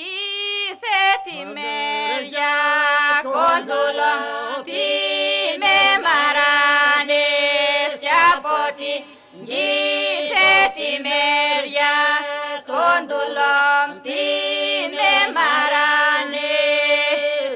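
A mixed group of women and men singing in the Epirote polyphonic style: a lead voice carries the melody while the others hold a steady drone beneath it. The phrases are long and held, with short breaths between them.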